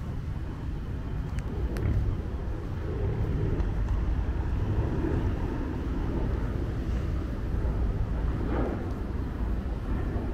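Downtown street ambience: a steady low rumble of vehicle traffic, with a brief louder swell of noise about eight seconds in.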